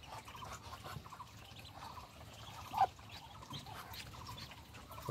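Newly hatched Muscovy ducklings peeping faintly in the nest, with one louder call about halfway through.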